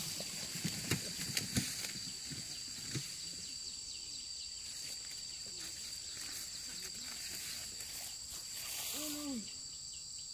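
Insects chirring with a steady, unbroken high drone, joined by a few soft knocks and rustles in the first three seconds and a short murmured voice near the end.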